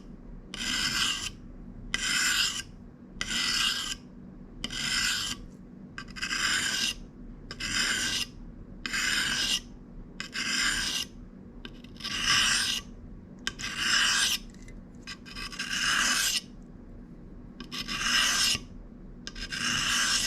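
A pocket knife blade is drawn across a sharpening stone in repeated strokes: about fifteen separate scrapes, roughly one every second and a bit, with short pauses between them.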